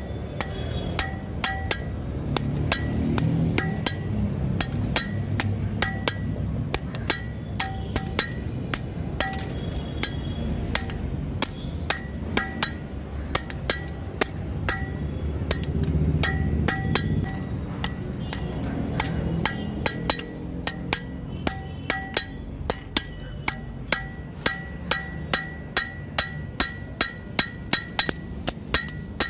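Hand hammer striking a steel billhook blade, made from a truck leaf spring, on an anvil. The blows come in a steady run, a few a second, and each one rings with a bright metallic ring.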